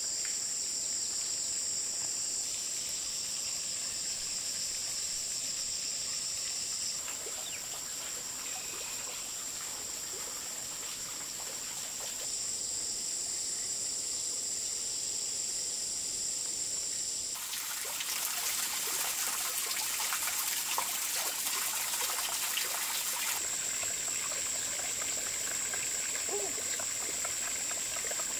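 Outdoor forest ambience: insects buzzing in a steady high drone, with water trickling. For several seconds past the middle a louder, fuller rush of water takes over.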